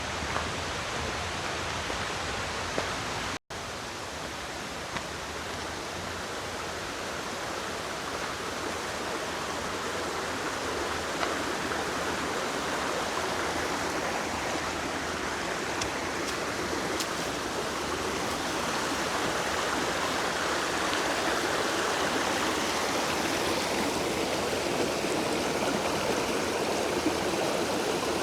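Creek water running over rocks in a steady rush that grows gradually louder. The sound briefly cuts out about three seconds in.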